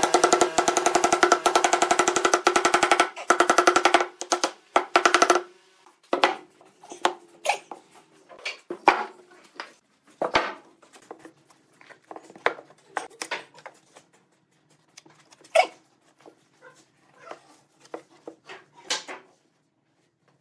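A fast run of sharp taps over a steady ringing tone for about the first five seconds, then scattered knocks and clunks of wooden blocks and logs being handled and set down on a workbench.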